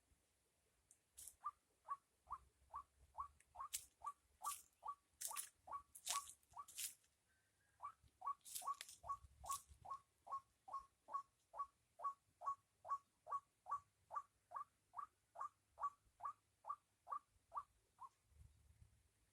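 An unidentified animal in a rice paddy repeating a short, slightly downward-dipping call, written 'kulek, kulek, kulek', about two to three times a second, faint and even. The calling pauses for about a second partway through, then runs on and stops a little before the end, with a few faint high ticks among the early calls.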